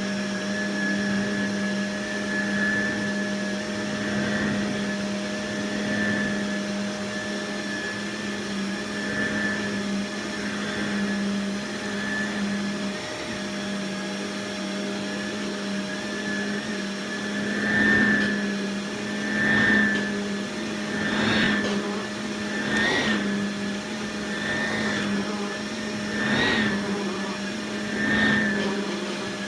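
Hoover WindTunnel Air canister vacuum running with its power nozzle, a steady motor hum and whine. About halfway through, the sound starts swelling and falling roughly every second and a half as the nozzle is pushed back and forth over carpet.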